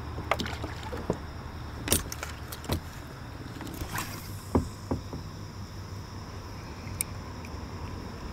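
Scattered light clicks and knocks of fishing tackle and rod against a plastic fishing kayak as an angler casts and reels in, over a low steady rumble.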